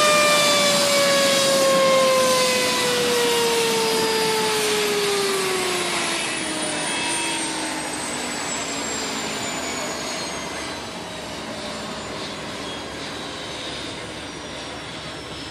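Crashed helicopter's turbine engine winding down: a whine with several overtones that slides slowly lower in pitch and fades, over a steady rushing hiss.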